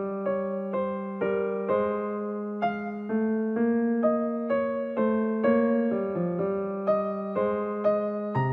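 Background music: a calm piano melody, a note struck about every half second over a held low note.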